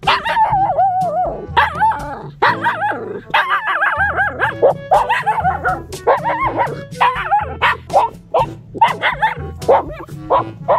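A Shiba Inu puppy whining and yipping in quick, pitch-bending calls, excited by prey as it digs after a mole. Background music plays underneath.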